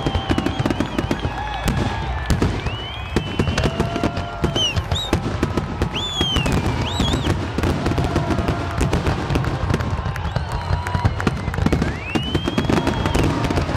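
Fireworks finale barrage: aerial shells bang in a rapid, continuous string with crackling, and high whistles rise and fall over the bangs.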